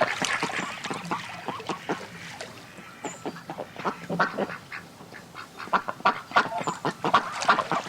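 A flock of ducks quacking: many short calls in quick, overlapping succession.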